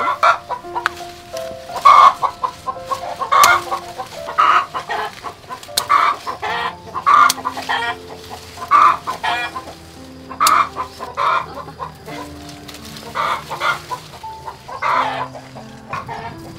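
Chickens clucking repeatedly, a short call about every second, over soft background music with slow held notes.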